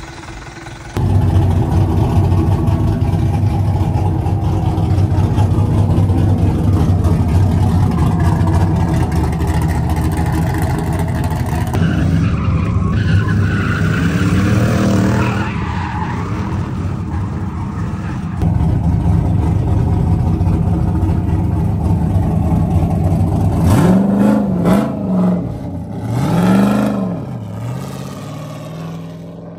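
Drift cars sliding at high revs, engines running hard with tyre skid noise, in several cut-together clips. Near the end an engine revs up and drops back twice.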